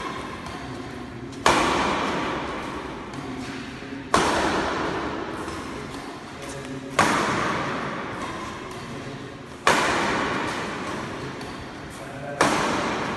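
Sharp hits, five of them at an even pace of about one every two and a half to three seconds. Each rings on for about two seconds, echoing in a large hall.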